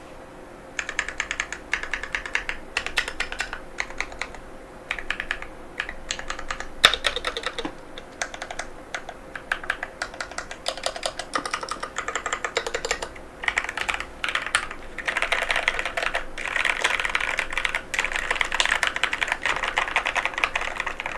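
Fast typing on a NovelKeys NK87 aluminum mechanical keyboard with Durock White Lotus tactile switches: quick runs of key clacks broken by short pauses, with one sharper, louder clack about seven seconds in.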